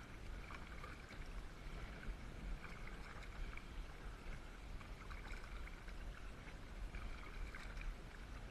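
Quiet water sounds of an inflatable kayak being paddled, faint small splashes and ticks over a steady low rumble.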